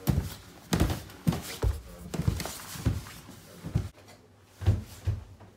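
Footsteps coming down a wooden staircase: a run of thumps about two a second, a short pause a little after four seconds, then two more.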